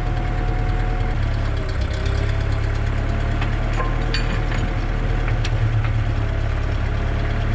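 Kubota tractor's diesel engine running steadily under load while driving a Bradco 625 hydraulic auger boring into dirt, with a few faint knocks. The engine note shifts about a second in.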